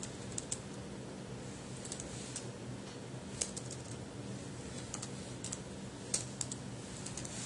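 Computer keyboard being typed on: scattered, irregular key clicks, over a faint steady low hum.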